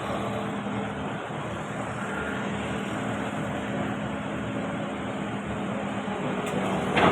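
Excavator engine running steadily with a constant hum, and a short, louder burst of noise right at the end.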